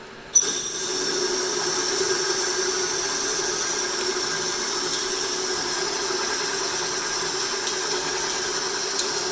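Monarch 10EE lathe taking a heavy turning cut at a slightly raised spindle speed, pushed as hard as it will go to test the low-speed torque of its retrofitted spindle drive. The tool bites in sharply about half a second in, then the cut runs steadily with a high tone over a lower hum.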